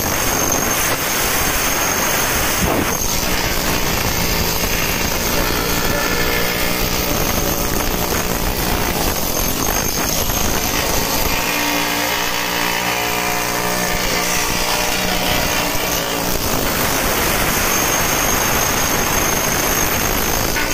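Steady, loud machinery din of a steel fabrication shop, with a faint pitched hum rising out of it for a few seconds around the middle.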